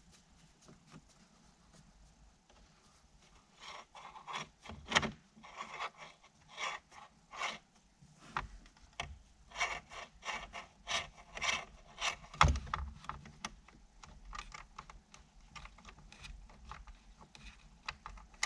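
Hand screwdriver working screws out of the factory radio and display's metal mounting bracket: a run of small clicks and scrapes, with two louder knocks about five and twelve seconds in.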